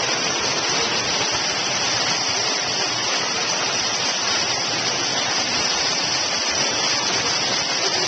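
Small waterfall pouring into a pool: a steady, even rush and splash of falling water.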